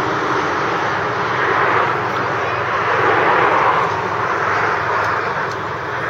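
Steady rushing noise of road traffic on the highway alongside the bridge, swelling slightly and easing as vehicles pass.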